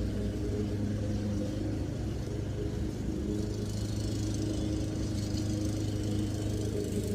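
Gas lawnmower engine running steadily under load.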